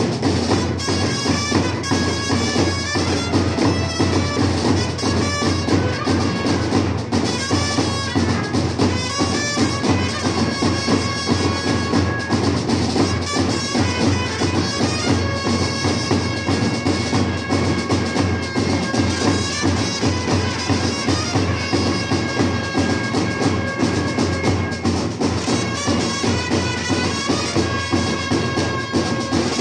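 Street band playing: trumpets carry a held, reedy melody over fast, steady beating of large double-headed bass drums and a side drum.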